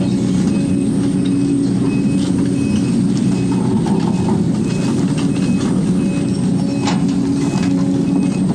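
Case 250D excavator's diesel engine and hydraulics working steadily under digging load, heard from inside the cab, with scattered clicks and clanks as the bucket works the soil and the boom swings.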